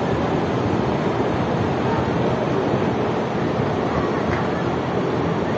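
Steady, even rushing noise of moving air, with no distinct events.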